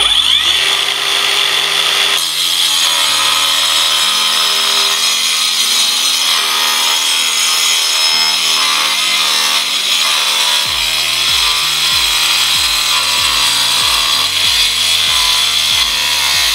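Akaido AKCS125BL 5-inch 21 V cordless circular saw running and cutting slowly through a wooden board, a steady saw noise that holds without stalling.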